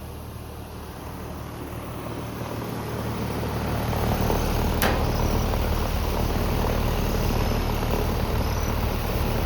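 Outdoor central air conditioner condenser running with a steady low hum, growing louder over the first few seconds and then holding level. A single sharp click comes about five seconds in.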